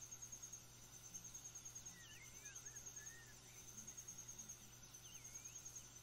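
Faint night insect chorus, a steady high cricket-like trill pulsing several times a second, with a few short chirped calls swooping down and back up about 2 seconds and 5 seconds in.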